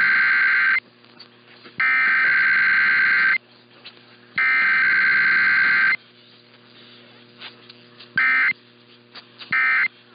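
Emergency Alert System SAME data header: three long bursts of buzzy two-tone digital chirping, each about a second and a half long with a short gap between, then two short bursts near the end that make up the end-of-message code closing the test. A faint steady mains hum runs underneath.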